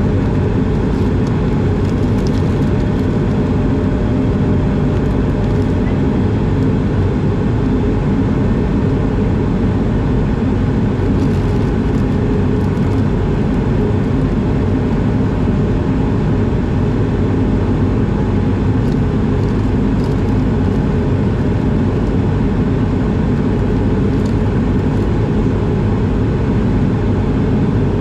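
Steady cabin noise of an Airbus A220 in level cruise flight, a deep even drone from its Pratt & Whitney PW1500G geared turbofan engines and the airflow over the fuselage.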